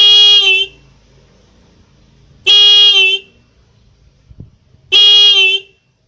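Motorcycle electric disc horn, with two 470 µF electrolytic capacitors wired across its terminals, sounded in three short honks of well under a second each, about two and a half seconds apart. Each honk ends with a slight wavering in pitch, a tail that the capacitors add.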